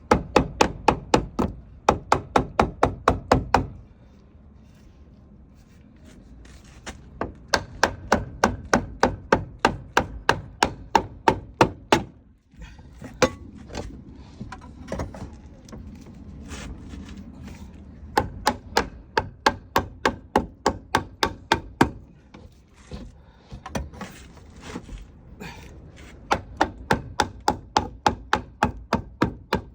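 Runs of loud, sharp knocks, about four a second, each run lasting three to five seconds with short pauses between.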